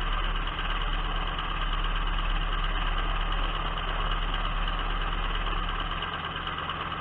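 Biplane's piston engine running steadily while the aircraft taxis on the ground, heard from an onboard camera on the wing.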